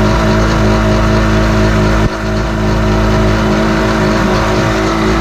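Sea-Doo jet ski's Rotax two-stroke engine running steadily out of the water, on its first runs after a carburetor rebuild. There is a momentary dip in level about two seconds in.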